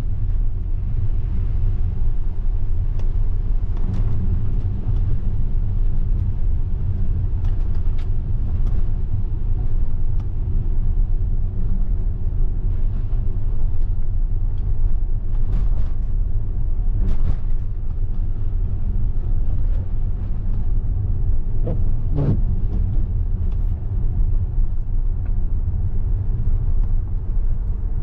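Steady tyre and road rumble heard inside a Tesla's cabin while driving on wet pavement, with no engine note. A few faint knocks come through, the clearest about 22 seconds in.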